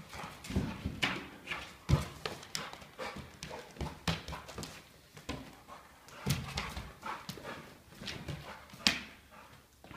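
A dog scuffling in rough play, with many irregular clicks and knocks.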